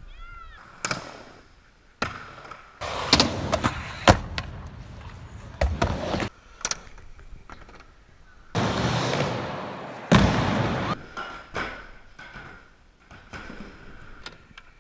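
Skateboard wheels rolling in stretches, broken by a series of sharp clacks and thuds as the board lands and strikes the ground during tricks.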